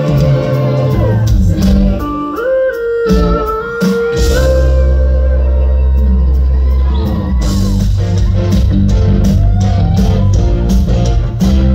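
A live band plays loud electronic rock: synthesizer keyboard, electric guitar, bass and drums. A gliding lead melody stands out in the first few seconds.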